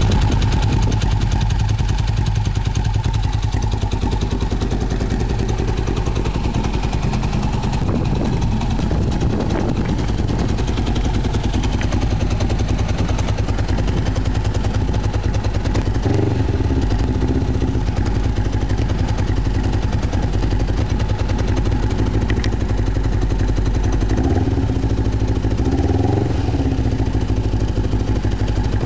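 Kawasaki EX500 parallel-twin engine with a Yoshimura aftermarket exhaust idling steadily, with a few short throttle blips where the pitch rises and falls, about eight seconds in, around sixteen seconds, and twice near the end.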